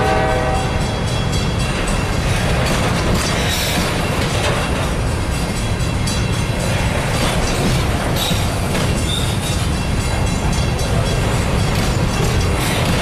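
Empty covered hopper cars of a grain train rolling past close by: a steady rumble and rattle of wheels on rail, with clicks over the joints and a couple of brief high wheel squeals. A locomotive horn chord stops about half a second in.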